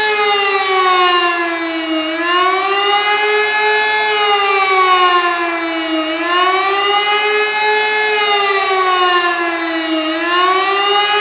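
A 1975 Elektror E57 electric motor siren wails during a test alarm. Its pitch rises quickly and falls slowly, about every four seconds, in the up-and-down warning tone.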